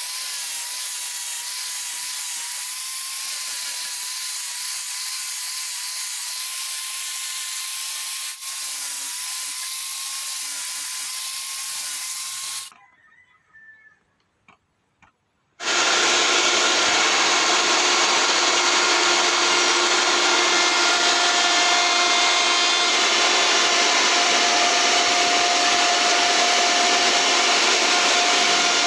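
A power tool working wood runs steadily with a slightly wavering whine, cuts off about 13 seconds in, and after about three seconds of near silence with a few light clicks, a power tool starts again and runs louder and steady to the end.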